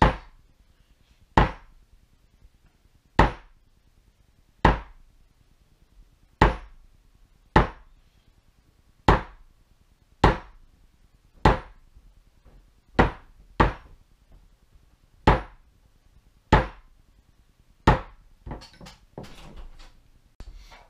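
White plastic mallet striking a metal leather-tooling stamp held on a leather sash, one sharp crack about every second and a half, fourteen or so strikes at an even strength. Near the end come lighter clicks and taps of tools being handled.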